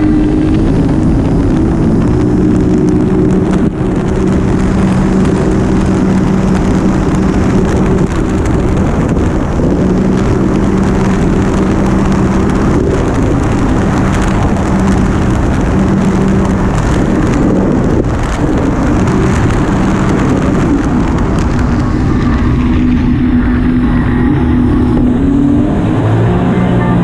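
Personal watercraft engine running steadily at speed over a constant rush of wind and water. Near the end its pitch dips and then climbs again.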